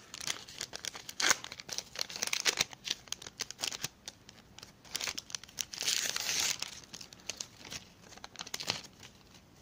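A sticker pack's wrapper being torn open and crinkled by hand, with many irregular crackles and rips and a longer tear about six seconds in.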